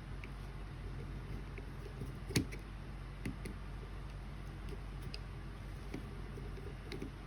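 Scattered light clicks and taps of small parts and tools being handled during a compact-camera repair, the sharpest about two and a half seconds in, over a steady low hum.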